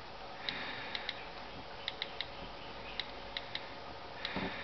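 iPhone on-screen keyboard key-click sounds: about a dozen short, light ticks at an irregular typing pace as a login is typed in.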